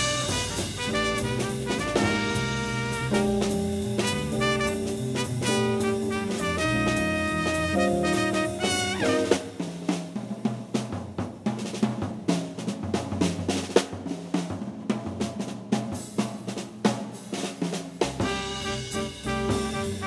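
Jazz quintet playing live: trumpet and saxophone play a melodic line together over double bass and drum kit. About nine seconds in the horns drop out and the drum kit carries on for some eight seconds, as in a trading passage, before the horns come back in near the end.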